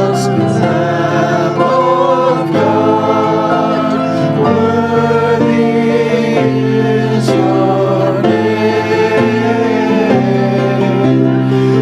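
A group of voices singing a slow worship song with instrumental accompaniment, holding long notes.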